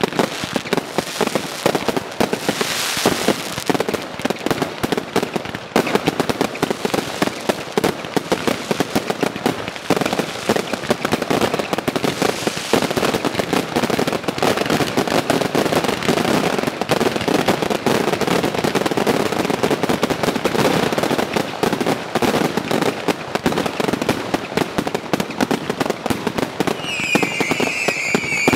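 Finale of a Category 3 firework display: a dense, continuous barrage of bangs, shell bursts and crackle, with hardly a gap. Near the end a high firework whistle comes in, falling slightly in pitch.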